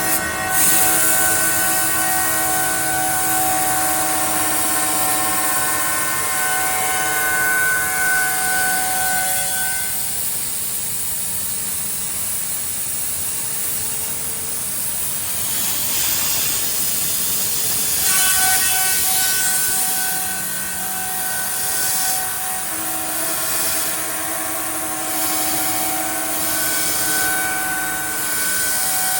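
Spindle of a 4-axis CNC wood milling machine running with a steady whine while its cutter mills wood. Partway through, the whine drops away for several seconds, leaving a rougher, hissing cutting noise, then returns.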